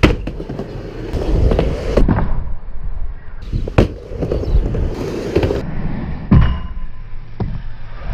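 Skateboard wheels rolling back and forth across a mini ramp, a steady low rumble broken by several sharp clacks of the board and trucks striking the ramp.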